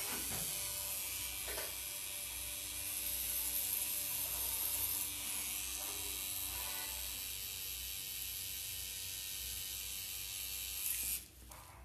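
Pen-style tattoo machine running with a steady buzz as the needle works the skin, cutting off about eleven seconds in.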